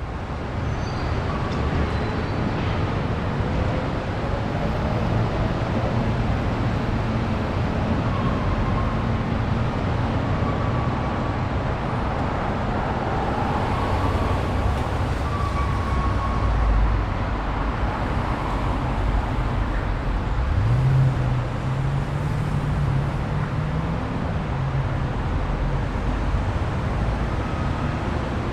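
Street traffic: a steady wash of road noise from passing cars, with low engine hum throughout. About twenty seconds in, one vehicle's engine rises in pitch as it pulls away.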